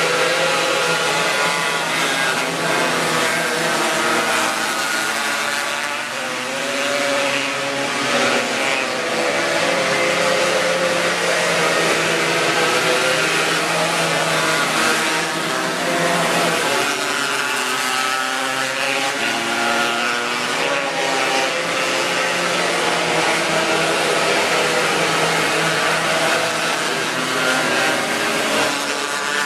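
A pack of winged sprint cars racing on a dirt oval, several engines revving together, their pitch rising and falling as they run through the turns.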